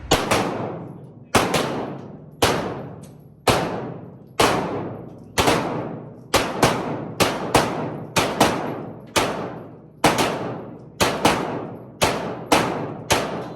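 Pistol shots fired in a timed race: about two dozen sharp shots with long echoing tails, roughly a second apart at first, then coming faster and overlapping, as if from two shooters at once.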